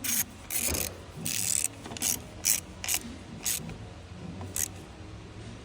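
Hand ratchet wrench clicking in about eight short, irregular strokes as bolts on the alternator mounting are run in and snugged down.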